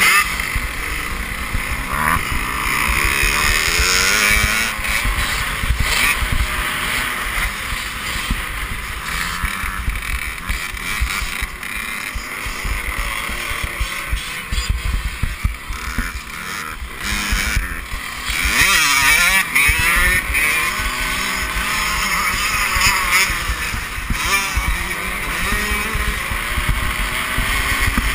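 Motocross bike engine revving up and falling back again and again as it runs through the gears at speed, with heavy wind buffeting on a bike-mounted microphone.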